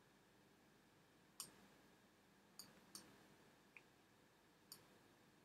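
Four faint computer mouse clicks at uneven intervals, each one a dab of the spot healing brush, over near-silent room tone.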